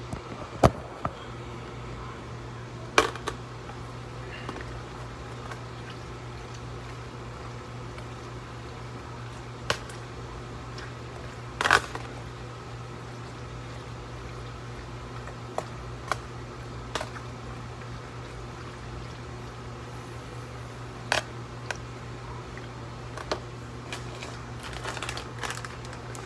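Cooking sounds over a steady low hum: scattered sharp clicks and knocks of utensils and cookware, a dozen or so spread out with a loud one about three seconds in and another near the middle.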